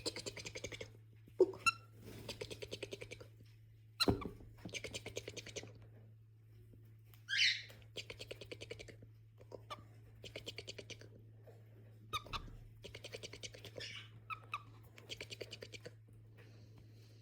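Cockatiel chattering in repeated short, rapid-pulsed bursts, with one loud chirp about seven seconds in and a couple of sharp clicks. A steady low hum runs underneath.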